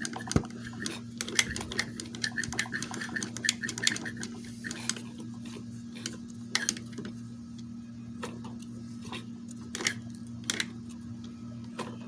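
Magnum XL 1.20 four-stroke model airplane engine, still hot, turned over slowly by hand at the propeller: a run of irregular squeaks and clicks from inside the engine, dense for the first few seconds, then sparser. The owner fears the squeak means the engine overheated at full throttle or the valves are set too tight.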